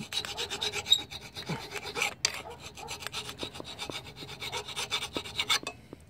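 Flat hand file rasping back and forth across the painted metal of a scooter frame, stripping the paint down to bare metal for a ground-wire contact. The filing stops shortly before the end.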